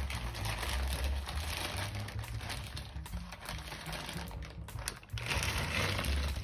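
Rapid clicking and clacking of AKKO Starfish mechanical keyboard switches, over background music with a pulsing bass. The clatter dips briefly about five seconds in, then picks up again.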